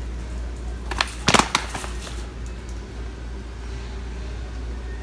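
A quick cluster of sharp clattering knocks about a second and a half in, with a single knock just before, over a steady low hum.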